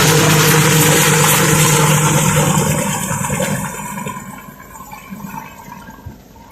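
Water-bombing helicopter's rotors and engine over the lake, a loud rushing noise with a steady low hum from rotor wash on the water. It fades away over the last few seconds as the helicopter moves off.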